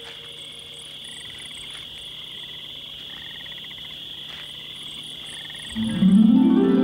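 Night woodland chorus of insects and frogs: a steady high insect drone with repeated pulsing trills over it. About six seconds in, plucked-string music comes in much louder with rising notes.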